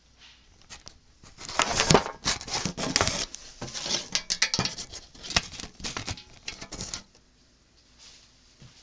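Parts and tools being handled on a workbench: a run of quick, irregular knocks and clatters from about a second and a half in until about seven seconds in.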